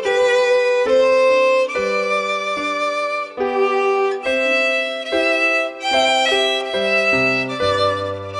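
Instrumental background music: a melody of distinct notes, each changing about every half second, over lower accompanying notes.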